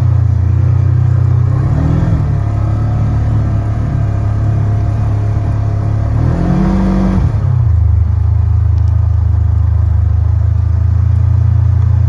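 A vehicle engine running steadily with a low hum, briefly revving up and easing off about two seconds in, then revving higher and longer around six to seven seconds in.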